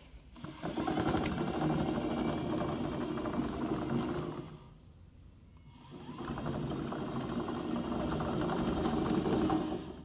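Remote-control tracked chassis driving on its brushless DC gear motors under cruise control: a steady mechanical whir with the rubber tracks rattling. It comes in two runs of about four seconds each, with a pause of over a second between them.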